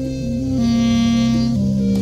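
Background music: long held instrumental notes that change pitch in steps, with a brighter, fuller note coming in about half a second in and lasting about a second.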